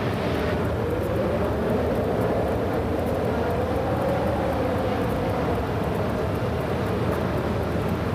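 A car driving: steady engine and road noise, the engine's pitch slowly rising and then falling.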